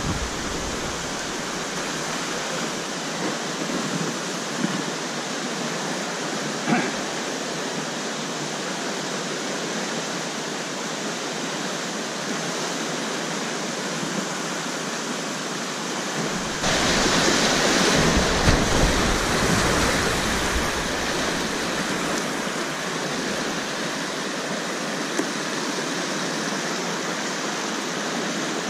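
Steady rush of river rapids. About sixteen seconds in it turns suddenly louder and fuller for about five seconds, then settles back to the steady rush.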